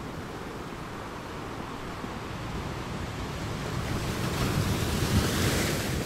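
Ocean surf: a steady low rumble of waves that swells, over the last couple of seconds, into the rushing hiss of a wave breaking and washing in.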